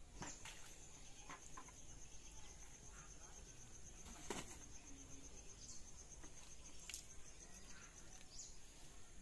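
Faint, high-pitched insect trill, a steady fast pulsing that stops near the end, with a few soft knocks over it, the loudest about four seconds in.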